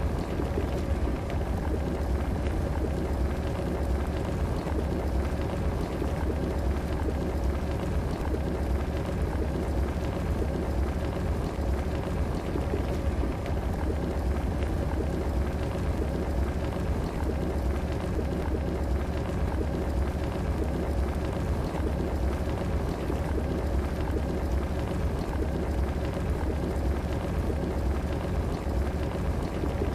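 Electric kettle heating water: a steady, even rumble and rushing noise with a faint steady hum.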